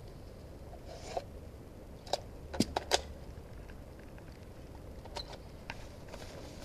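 Sharp mechanical clicks and snaps from an airsoft rifle being handled and aimed: single clicks at first, then a quick run of three loud ones about two and a half seconds in, and two fainter clicks later on.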